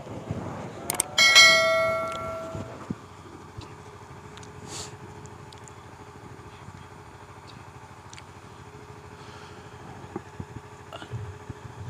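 A click followed by a bright bell-like 'ding' that rings out and fades over about a second and a half: a subscribe-button notification sound effect. After it, only faint steady background with a thin hum.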